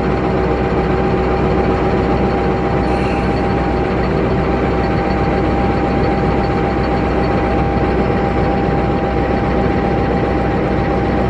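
Diesel engine of an Indonesian Railways CC 206 diesel-electric locomotive, a GE V8, running loud and steady at one speed during its warm-up, with a steady whine over the engine noise.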